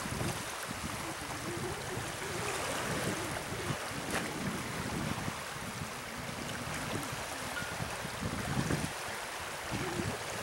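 Steady rush of turbulent water in a concrete canal below its gate structure, with wind buffeting the microphone in uneven gusts.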